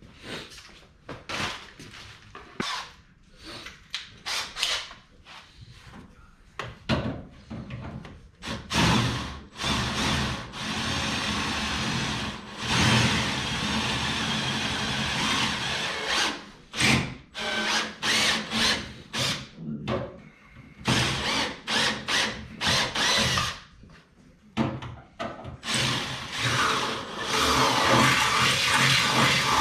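A handheld power tool run in many short bursts, with longer runs of several seconds in the middle and near the end.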